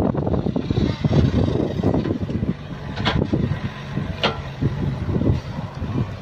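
Compact Sumitomo excavator's diesel engine running under load while the hydraulics lift a bucket of earth out of a trench, with an uneven low clatter. Two brief sharp sounds cut through about three and four seconds in.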